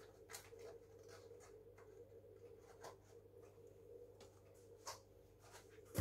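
Near silence: a steady low electrical hum, with a few faint taps and scrapes of handling and one sharper knock at the very end.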